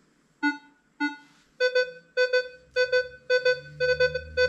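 Minelab Equinox 800 metal detector sounding its target tone as a thin 8-karat gold chain passes over the coil: two single lower beeps, then a steady run of higher double beeps about twice a second, a mid-range gold reading (target ID around 11–14).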